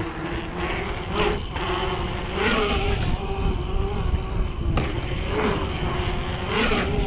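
Mountain bike coasting: the rear freehub buzzes in a steady tone while the tyres roll over dirt, with heavy wind rumble on the microphone and a few brief bumps.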